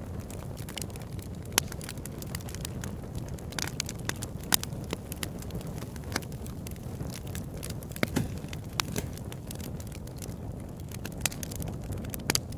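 Wood fire burning steadily with a low rumble, crackling and popping irregularly, with a few sharper pops standing out.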